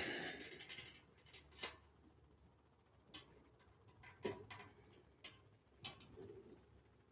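A long breath out close to a clip-on microphone, a noisy rush fading over about a second as the body folds forward into the bend, followed by a few faint, irregular clicks.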